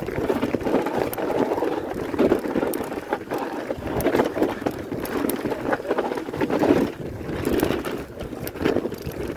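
Marin Hawk Hill 3 mountain bike descending a rough dirt trail, heard from a camera on its handlebars. The bike rattles and clatters over roots and ruts, with many small knocks over a constant rumble of tyres on dirt and wind on the microphone.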